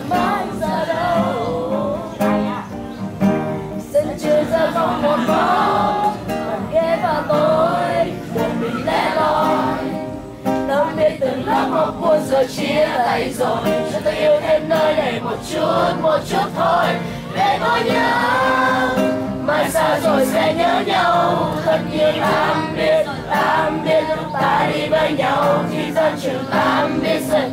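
A group of teenagers singing a farewell song together in unison, loud and continuous.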